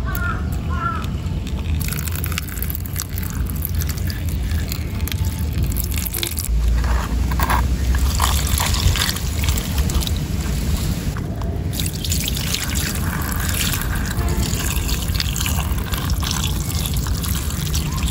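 A stream of water pouring and splashing onto a plastic toy car and the wet ground, rinsing off caked mud. The sound is steady, shifting in character a few times.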